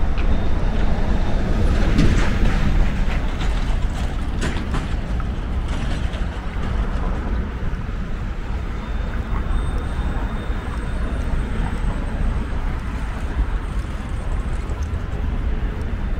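Steady city street traffic noise: the engines and tyres of passing cars, vans and trucks, a deep rumble that is a little louder in the first few seconds.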